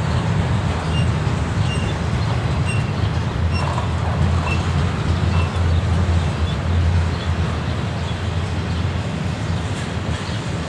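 Double-stack container freight train rolling past at steady speed: a continuous low rumble of the cars and their wheels on the rails. A few faint, short high chirps come through in the first half.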